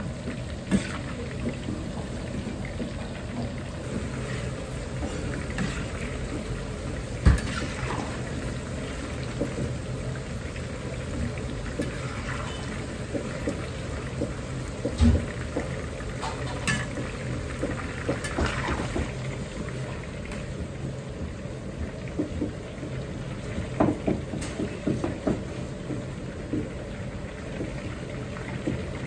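Battered chicken pieces deep-frying in a full iron wok of hot oil: a steady bubbling sizzle over a low hum, broken a few times by sharp knocks and scrapes of the stirring utensil against the wok.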